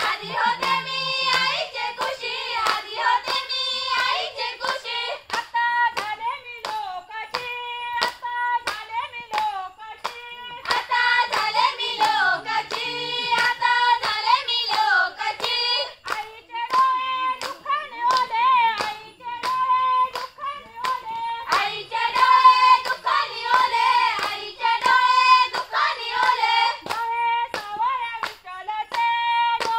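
A group of women singing a Konkani folk song in chorus over steady, evenly spaced hand-clapping. The singing swells louder three times and drops back between.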